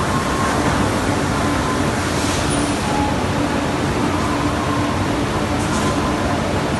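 Loud, steady industrial machinery noise with a constant low hum and no break.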